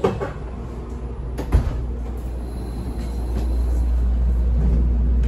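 N700 Shinkansen vestibule door shutting: a sharp knock, then a heavy thud about a second and a half in. A steady low hum of the train follows and grows a little louder.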